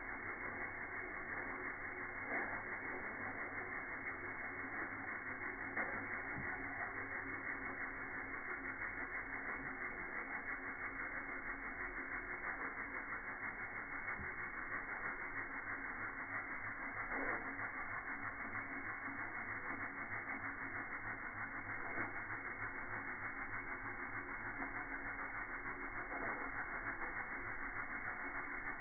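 Saito model Hero engine (aeolipile) running: a steady hiss of steam jetting from the spinning ball, with a fast, even flutter and a few faint clicks.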